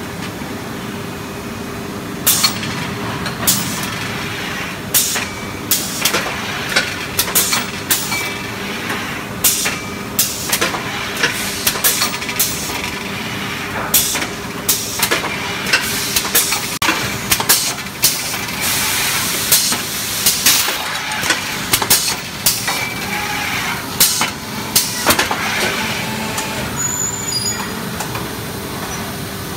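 Factory machinery on a rubber track preforming line runs with a steady hum. Sharp metallic clanks, several a second at times, come as the feeding frame sends iron cores into the hydraulic press. A stretch of air hiss sits in the middle, and the clanking starts about two seconds in and dies away near the end.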